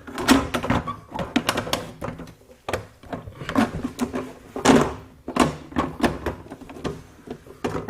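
A run of irregular knocks, clunks and rattles of hard parts being handled: a spare rear light unit being offered up and fitted into the car's rear body panel.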